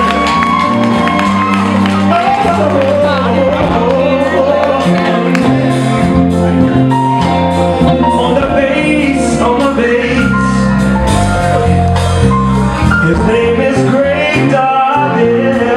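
Live band playing, with sustained bass and keyboard chords under a singing voice; electric guitar and a horn are part of the band.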